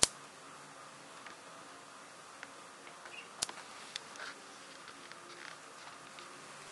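Light clicks and taps of a plastic hook and rubber loom bands on a plastic loom's pegs: one sharp click right at the start, another about three and a half seconds in and a smaller one just after, with scattered faint ticks over a faint steady hum.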